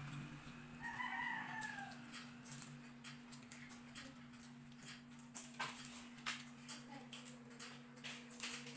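A rooster crowing once about a second in, a short call that falls slightly in pitch. Scattered small clicks and cracks follow from a crab being picked apart by hand, over a steady low hum.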